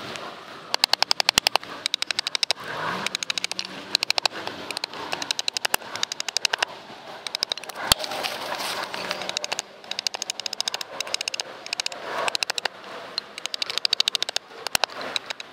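Hultafors chopping axe hewing a wooden spoon blank on a chopping block: rapid runs of sharp chopping knocks with short pauses between them. The footage is sped up, so the strokes come quicker than real time.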